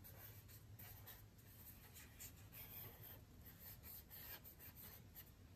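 Faint scratching of a felt-tip washable marker on thick drawing paper, a quick run of short wavy strokes.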